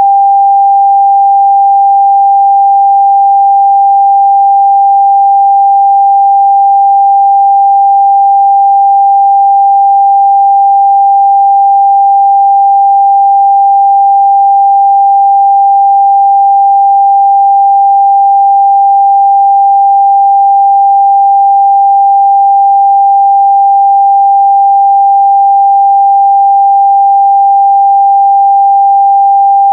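A steady, unbroken 794 Hz sine-wave test tone: one pure pitch, constant in level.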